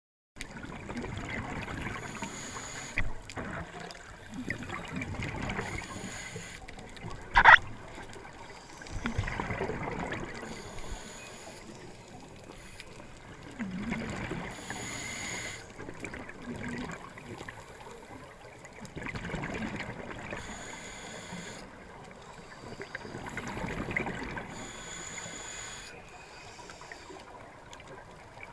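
Underwater sound of a scuba diver breathing through a regulator: rushes of breath and exhaled bubbles that swell and fade in slow cycles every few seconds. A single sharp click about seven seconds in is the loudest sound.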